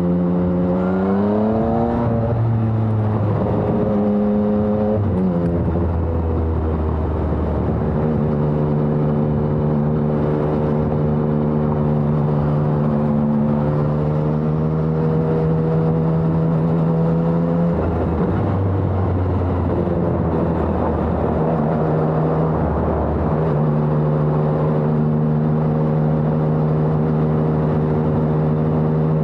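Yamaha XSR900's inline three-cylinder engine running through a LeoVince Evo One full exhaust system while riding. It holds steady revs for long stretches, with a brief rise in revs near the start and a few gear changes or throttle changes around the 5 s, 18 s and 22 s marks.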